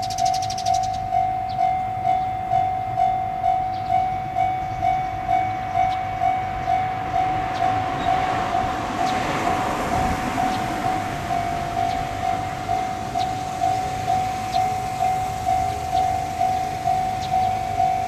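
Japanese railway level-crossing warning bell ringing steadily, a little over two strokes a second. A train passes through the crossing, its rolling noise swelling and fading about halfway through.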